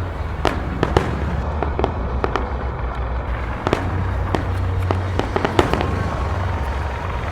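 Aerial fireworks exploding in rapid, irregular succession, several sharp bangs a second over a steady low rumble.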